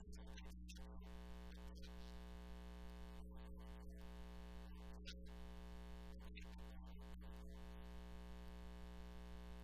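Faint, steady low hum with a buzz of evenly spaced overtones.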